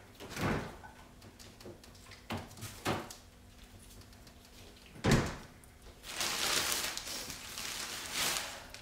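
Refrigerator door opened and groceries put on its shelves with a few light knocks, then a louder thump about five seconds in. This is followed by a couple of seconds of rustling as more shopping is unpacked.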